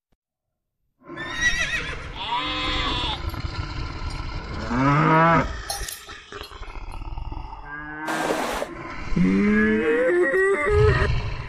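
Cows mooing: several drawn-out calls one after another after about a second of silence, one falling in pitch near the middle.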